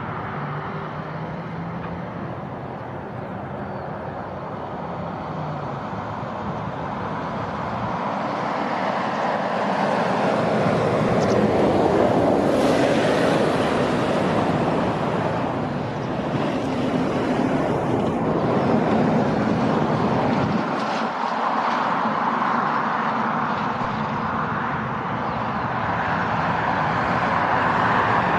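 Airbus A330 freighter on final approach, the steady rush and rumble of its twin jet engines growing louder as it comes in toward the runway.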